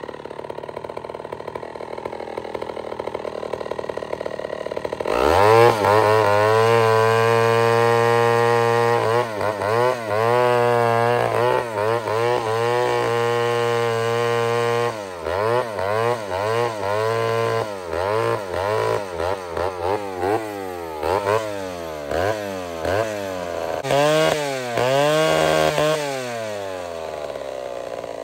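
Old Pioneer two-stroke chainsaw idling, then opened up to a steady high rev about five seconds in. Later it comes in short, uneven revs that keep dropping away and catching again: the engine is faltering, which the owner puts down to a breaking-down ignition coil.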